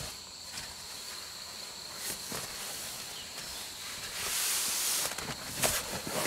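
Steady high trilling of night insects, with the rustle of hammock fabric about four seconds in and a few soft knocks as a man shifts and sits up in his hammock.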